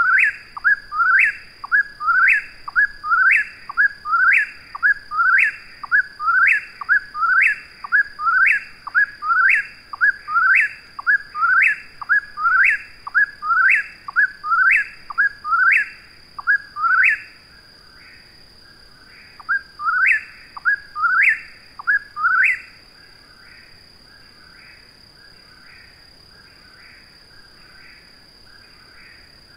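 Eastern whip-poor-will singing its 'whip-poor-will' phrase over and over, loud and close, about one phrase a second. It breaks off about 17 seconds in and sings four more phrases around 20 seconds. Fainter phrases of the same kind carry on under and after it.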